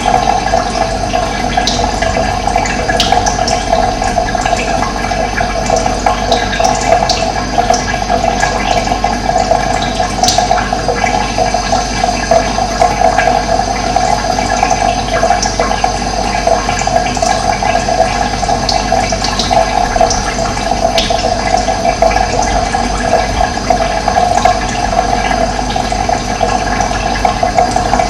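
Running water flowing steadily with a continuous rush, with brief high bird chirps scattered through it.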